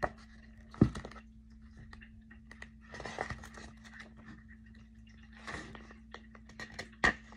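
Faint rustling and handling of book pages, with two sharp clicks, one about a second in and one near the end, over a steady low electrical hum.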